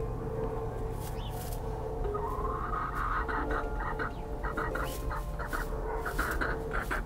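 Easter Egger hen clucking softly on the nest, with the hay of the nest box rustling as she shifts about. From about two seconds in, the clucks come as a run of short broken calls. She is settling in before laying an egg.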